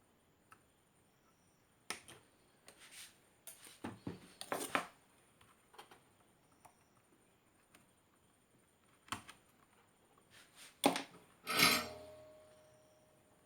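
Scattered clicks and small knocks of hand tools working on a circuit board, the snips and handling as capacitor leads are cut and soldered. Near the end a louder sharp clink with a short fading ring, like a metal tool set down.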